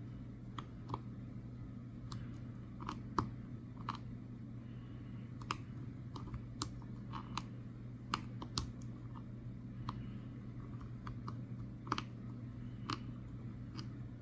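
Irregular small metallic clicks and taps, a few a second, from a hook pick working the security pins of a Master Lock 6835 padlock held under tension while it is single-pin picked. A steady low hum runs underneath.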